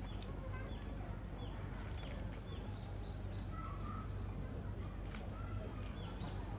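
Outdoor ambience: a bird chirping in runs of short, high, quickly repeated notes, about three or four a second, over a steady low hum.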